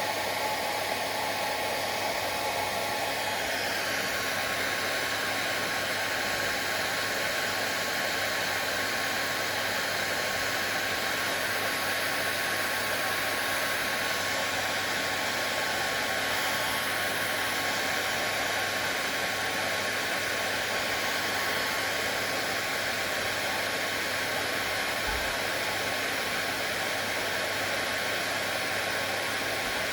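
Hair dryer running steadily: an even rushing noise with a faint steady whine, its tone shifting slightly about three seconds in.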